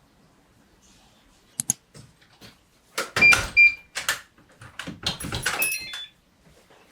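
Hard objects being handled: two sharp clicks, then a busy run of knocks and clinks with brief metallic-sounding rings.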